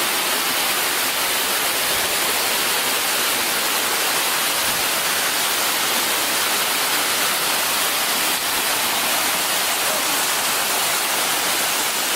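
Waterfall: a steady rushing hiss of falling water, even in level throughout.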